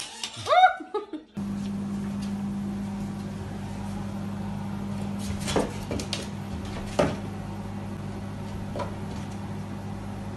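A steady low hum with a few sharp clicks scattered through it. In the first second or so, before the hum starts, there are a few short pitched sounds that rise and fall.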